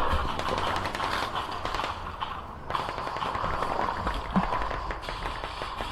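Airsoft guns firing: scattered rapid clicks and snaps of shots throughout, with no single loud report.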